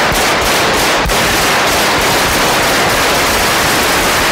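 Automatic gunfire from Guardia Civil submachine guns, firing in long unbroken bursts that echo through the Congress chamber.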